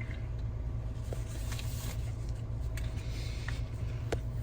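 Steady low rumble of an idling car, with a few faint clicks and rustles.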